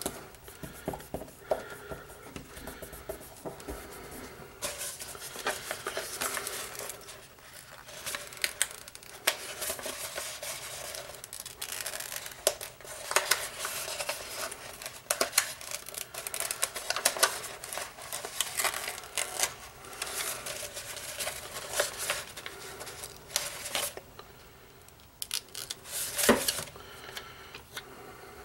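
Sticker paper rustling and crackling in bursts as its backing is peeled off and the cut stencil pieces and roll are handled, with small clicks and a sharper crackle near the end.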